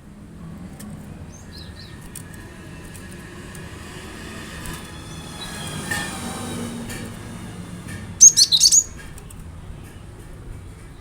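Cinereous tit (gelatik batu) calling: a few faint high chirps, then a loud, quick burst of chirps about eight seconds in. A faint droning hum swells and fades underneath in the middle.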